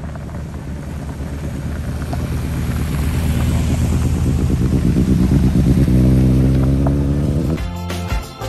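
Motorcycles riding past on a gravel dirt road: the engine noise builds as a bike comes close, loudest about six seconds in, where the engine note changes pitch as it passes. Music cuts in abruptly near the end.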